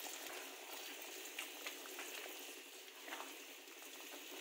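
Pointed gourd and prawn curry simmering in a pan: a faint steady bubbling hiss, with a few soft taps of a spatula stirring it.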